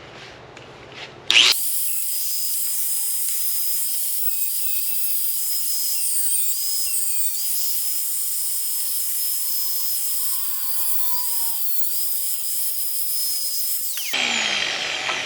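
High-speed grinder cutting sheet steel. It starts about a second and a half in and runs with a steady high whine that sags slightly now and then under load, then cuts off near the end and spins down.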